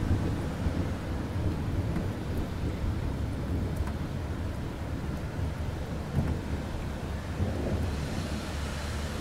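Steady rain with low rolling thunder, the rumble heaviest near the start.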